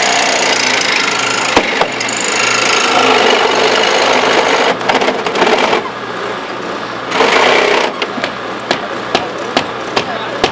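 Corded reciprocating saw cutting through the metal window frame of a car door, running steadily at first, then in short stop-start spurts, with a run of sharp clicks near the end. A steady engine hum runs underneath.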